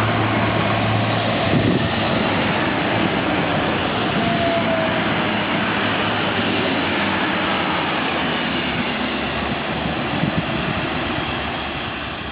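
A train passing, a steady loud rush of wheels on rails that eases off near the end.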